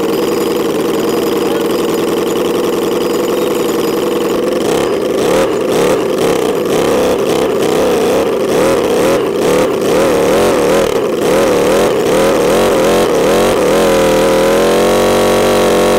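Miniature 78cc DOHC V8 gasoline engine running: a steady, even run at first, then revved up and down several times from about five seconds in, and held at a higher steady pitch near the end.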